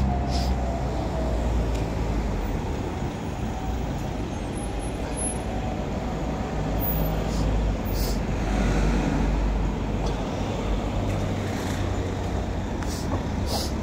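City street traffic noise: vehicle engines running and passing, heard as a steady low rumble.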